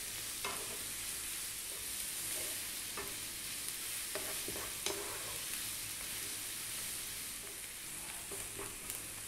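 Grated carrot and onion sizzling steadily in hot sunflower oil in a nonstick frying pan on high heat, stirred with a wooden spatula that gives a few light taps against the pan.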